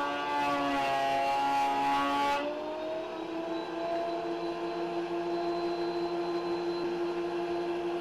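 DeWalt benchtop thickness planer cutting a board, a loud hiss of chips over the motor that stops suddenly about two and a half seconds in as the board clears the knives. The motor then picks up speed and runs on unloaded with a steady whine.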